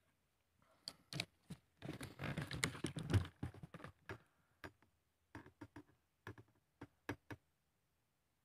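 Handling noise from the phone and rifle scope: scattered sharp clicks and taps, with a denser stretch of scraping and rubbing about two seconds in, as the rifle is moved and re-aimed.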